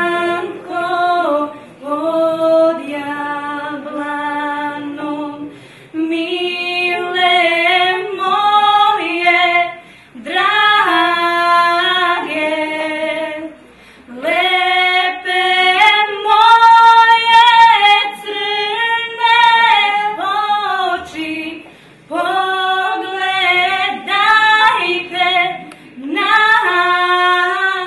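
Two young female voices singing together unaccompanied, in sustained phrases of a few seconds each with short pauses between them.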